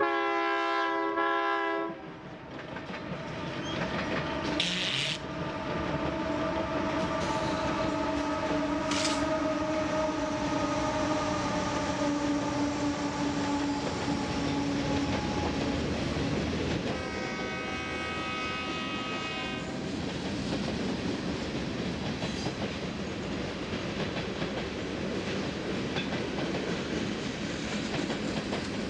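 Union Pacific freight train passing: the locomotive's air horn sounds a chord for about two seconds at the start and again for about three seconds some 17 seconds in. The steady rumble and clickety-clack of the train's wheels on the rails fill the time between and after.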